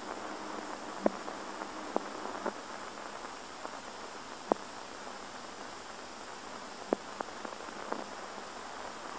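Steady hiss of an old optical film soundtrack, with about seven short, sharp clicks and pops scattered through it.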